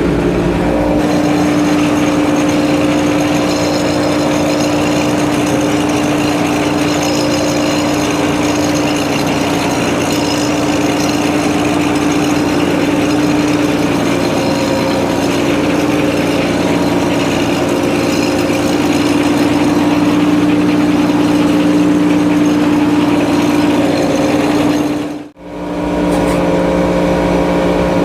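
Frick 01-C sawmill's engine and machinery running at a steady speed, a loud even hum. The sound breaks off for an instant near the end.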